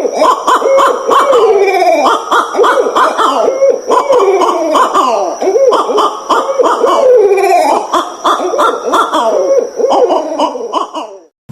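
Barred owls caterwauling: a rapid, overlapping run of wild cackles and hoots, many of them falling in pitch, as in a courting pair's duet. The calling cuts off abruptly near the end.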